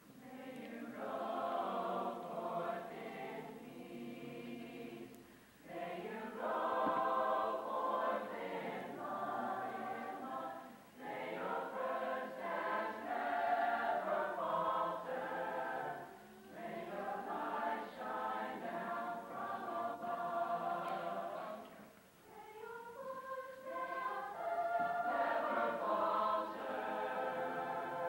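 Large mixed high school chorus singing, in phrases of about five seconds with short breaks for breath between them.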